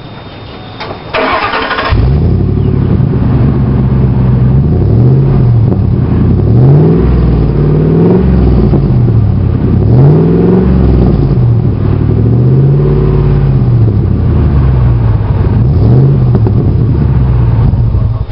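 1999 Ford Expedition's 5.4-litre V8 cranking briefly and starting, then revved up and down several times, its exhaust running through a Cherrybomb glass pack muffler.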